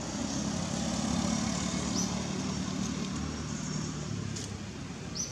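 Low engine drone of a passing motor vehicle that swells early on and fades away after about four seconds, over outdoor background noise. Two brief high chirps come about two seconds in and near the end.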